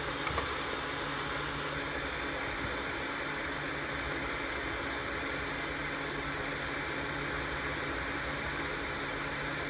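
Desktop computer fans running with a steady whir and a faint low hum, and two faint clicks just after the start.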